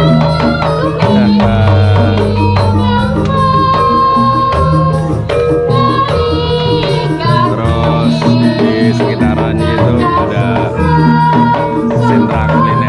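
Live Javanese gending music, with singing over struck percussion.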